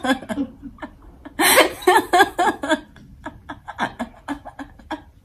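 A woman laughing hard: a run of loud bursts of laughter that breaks into shorter, fainter laughs in the second half.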